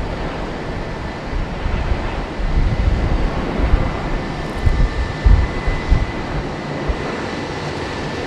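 United Airlines Boeing 777-200 jet engines on final approach, gear down: a steady jet rumble with a thin high whine that grows stronger about halfway through, and uneven low rumbling peaks in the middle.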